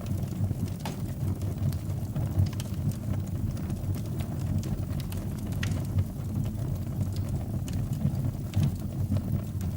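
Wood fire burning in a fireplace: a steady low rumble of flames with scattered crackles and pops.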